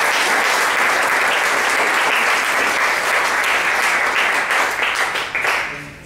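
An audience applauding steadily, many hands clapping at once, then dying away near the end.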